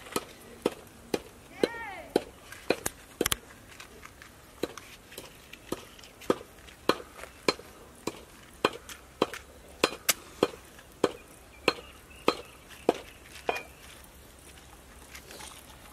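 A long run of sharp wooden clicks and knocks, about two a second, as pieces of wooden slat are handled and set between cement blocks to lay a cooking fire. The clicks stop shortly before the end.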